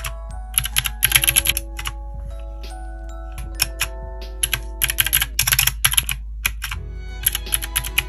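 Fingertips tapping the keys of an AZIO IZO number pad, sharp key clicks coming in quick flurries about a second in and again around five seconds in, with scattered single taps between. Background music plays underneath.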